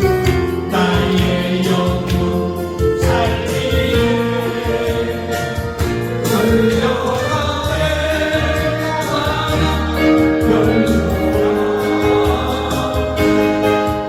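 Christian gospel song: voices singing sustained melodic lines over instrumental backing with a steady beat.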